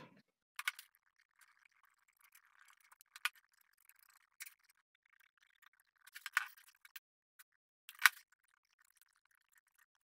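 A small brush scratching softly as it spreads wood glue over wood, with about five sharp light clicks and taps, the loudest about eight seconds in.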